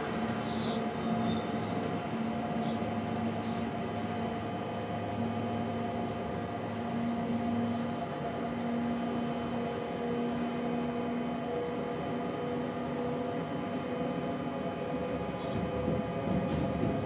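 Electric train running at a steady pace, heard from inside the driver's cab: a continuous rumble with a steady hum of several held tones.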